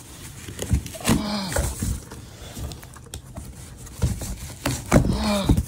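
Two short wordless vocal sounds, one about a second in and one near the end, amid light clicks and scrapes of a boxed replacement taillight being handled.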